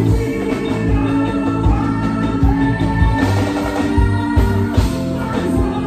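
Live band music: electric guitar with keyboards and drums, played loud and steady on stage.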